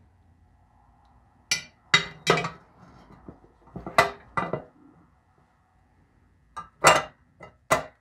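Chrome headlight bezel clinking and knocking against the glass lens and metal housing of a Graham headlight as it is set into place by hand. The sharp clinks come in short clusters, about two seconds in, around four seconds in, and near the end.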